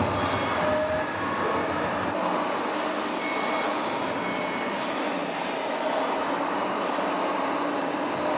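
Radio-controlled model excavators and a model dump truck at work: a steady mechanical whirring of their small motors and drives, with a few short, thin whines through it.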